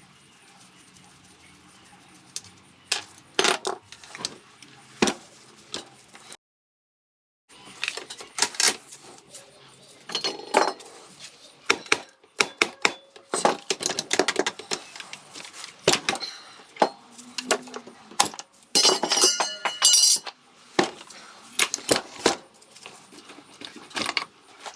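Metal hand tools and engine parts clinking and knocking at irregular intervals while a scooter engine is taken apart, with a short metallic ringing about three-quarters of the way through. The sound drops out completely for about a second near the start.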